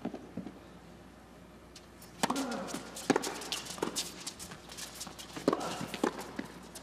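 Doubles tennis rally on an indoor hard court: a ball bounce, then after a quiet couple of seconds a quick run of sharp racket strikes and ball bounces mixed with players' footsteps.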